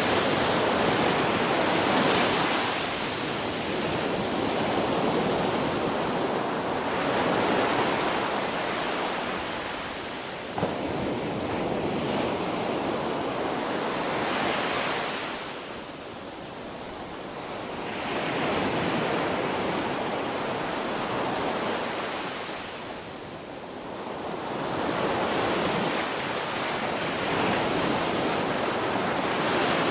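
Ocean waves breaking on a beach, the surf rising and falling in slow swells every several seconds with a continuous rushing wash between breakers.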